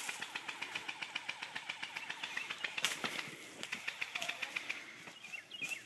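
Airsoft gun firing on automatic, a rapid, even stream of shots that stops about three seconds in, followed by a few scattered shots.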